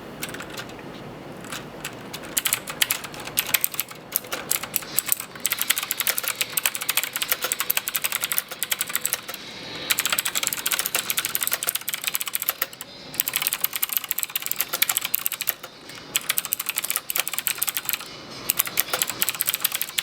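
Fast typing on a Xenics Titan Mark7 mechanical keyboard: a rapid stream of key clacks that starts about a second and a half in, with brief pauses about 13 and 16 seconds in.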